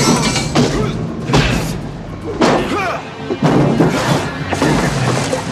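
Movie fistfight sound effects: heavy blows and body impacts landing about once a second, with the fighters grunting, over a loud action score.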